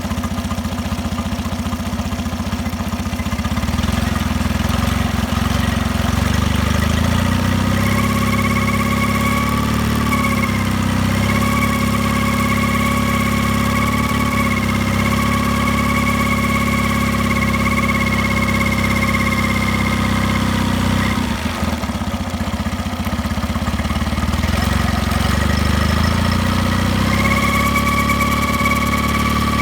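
Mercury 9.9 Pro Kicker four-stroke outboard running at low rpm, with a steady high-pitched hum over the engine note. The hum comes in about a quarter of the way in, drops out for a few seconds past two-thirds, and returns near the end. The owner takes it for a bearing noise.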